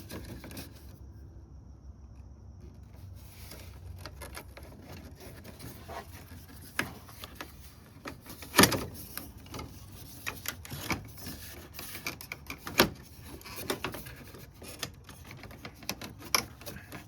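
Plastic car front-end trim and grille pieces clicking, tapping and knocking as they are handled and fitted into place, with two sharper knocks a little past halfway and about four seconds later.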